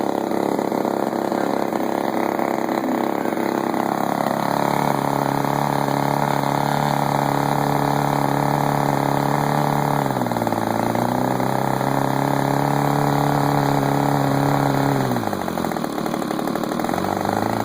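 DLE-30 single-cylinder two-stroke gasoline engine running steadily at low speed. Its speed picks up about four seconds in, then sags and recovers twice, about ten seconds in and again near the end, the sign of carb cleaner being drawn in through a vacuum leak at the reed block gasket.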